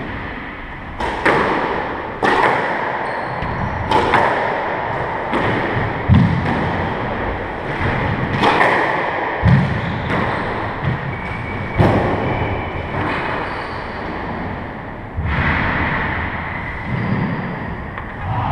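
A squash rally: the ball struck by racquets and hitting the court walls, sharp hits every one to two seconds that echo in the enclosed court.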